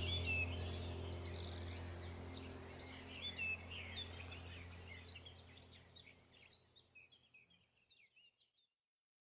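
Small birds chirping rapidly over a low steady hum, the whole sound fading out to silence about six seconds in.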